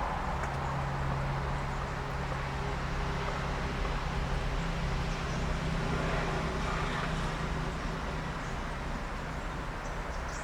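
Steady vehicle traffic noise: a continuous low engine hum under road noise, easing off slightly near the end.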